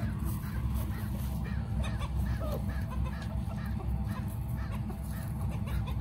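Chickens clucking, many short calls in quick succession, over a steady low rumble.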